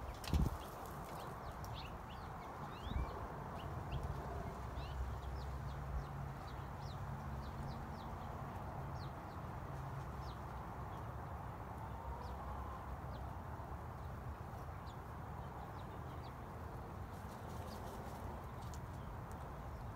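Many short, high chirps of small birds, a few each second, over a low steady background rumble, with two sharp thumps in the first few seconds.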